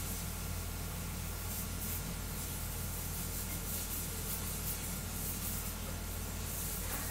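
3D printer printing at high speed: a steady hiss of its cooling fans and motors, with a faint steady tone held throughout.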